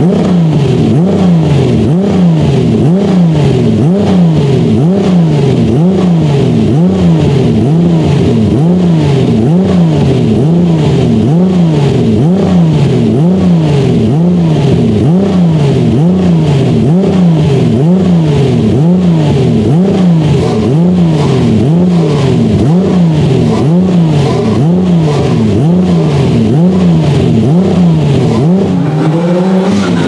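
BMW M1 Procar's 3.5-litre M88 straight-six, standing still, blipped repeatedly on the throttle during warm-up. It revs up and drops back about once a second in a steady rhythm, heard close to the exhaust pipes.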